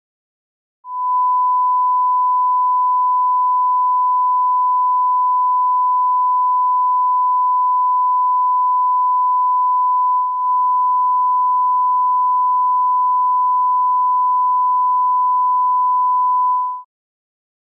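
Steady 1 kHz reference test tone, the 'bars and tone' line-up signal that accompanies SMPTE color bars at the head of a video master. It starts about a second in, drops out for a split second about ten seconds in, and stops about a second before the end.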